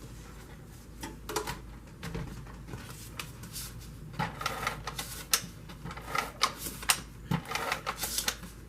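Adhesive tape runner being run across a cardstock card base, giving runs of rapid clicking that come thicker in the second half.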